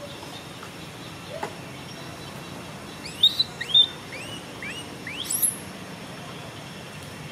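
A small bird chirping: a quick run of six or seven short, high, rising chirps over about two and a half seconds in the middle, over a steady low outdoor rumble.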